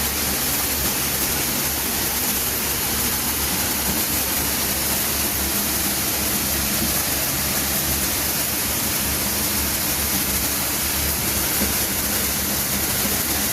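Electric high-pressure washer running under load with the trigger open: a steady hiss of the water jet over the low hum of the motor and pump.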